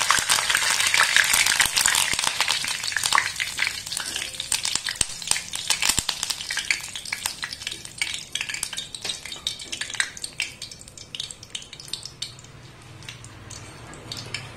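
Curry leaves frying in hot oil in a steel kadhai, held in a wire-mesh frying strainer: loud sizzling with dense crackling that dies down gradually as the moisture cooks out of the leaves. A spoon stirs them against the mesh with light clicks.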